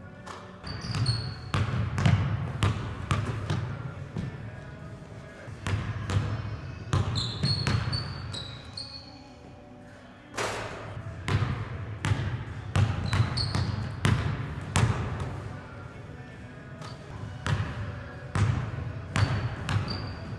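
A basketball dribbled and bouncing on a hardwood gym floor in irregular runs, each bounce echoing through the big hall. A few short, high sneaker squeaks come in between.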